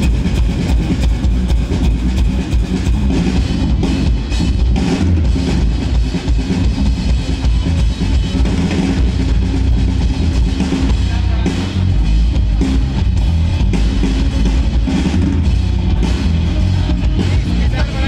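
Live rock band playing loud electric guitars and a drum kit through PA speakers, all kicking in together right at the start.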